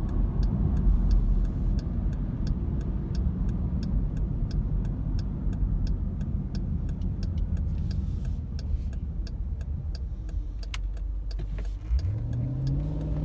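Cabin sound of a 2015 Jeep Grand Cherokee SRT's 6.4-litre HEMI V8 and tyres on the road while driving, with a regular light ticking. Near the end the engine note rises as it accelerates.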